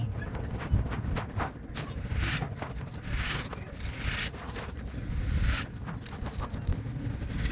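A crumbly material being crushed and crumbled by hand, with dense crackling and four longer, hissing crunches spaced about a second apart.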